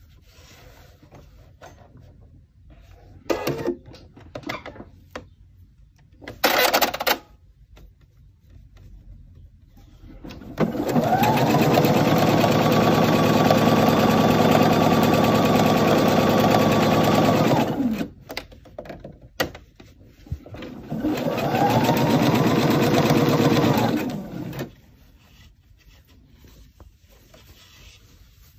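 Computerized sewing machine stitching in two runs, a long one of about seven seconds and then a shorter one of about three seconds, each speeding up as it starts and winding down as it stops. A few short bursts of noise come earlier, before the machine runs.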